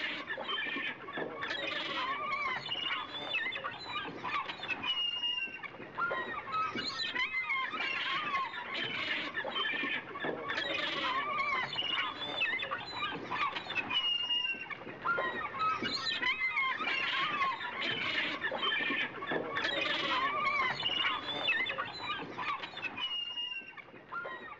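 Many birds calling together in a busy, continuous chorus of short chirps. The same stretch seems to repeat about every nine seconds, like a looped ambience track.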